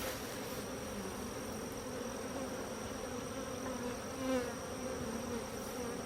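Honey bees buzzing in a steady drone around an opened hive while its frames are being worked, briefly louder about four seconds in.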